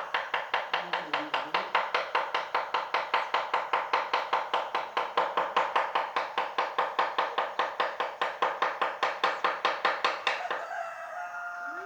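Rapid, even tapping of a carving mallet on a wood chisel, about four to five knocks a second, each with a short ring, as teak is carved by hand; the tapping stops near the end.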